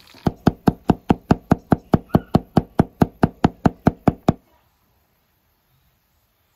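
Kitchen knife chopping garlic on a wooden cutting board: a fast, even run of about twenty knocks, about five a second, that stops about four seconds in.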